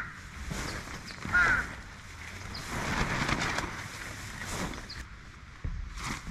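A bird calling twice: a short call right at the start and another about a second and a half in.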